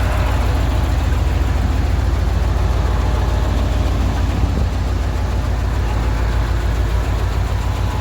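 Heavy crane truck's diesel engine running steadily, a deep, even drone with no change in revs.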